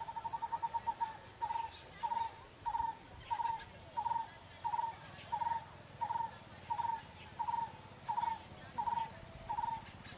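A bird calling: a fast trill that, about a second in, slows into a steady series of short, even notes, about two a second.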